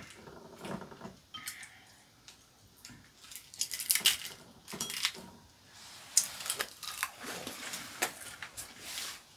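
Eating at a table: chopsticks clicking and tapping against ceramic bowls and plates, with chewing noises.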